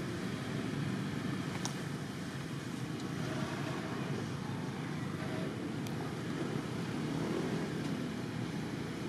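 Steady low outdoor background rumble with no clear source, with two faint ticks about two and six seconds in.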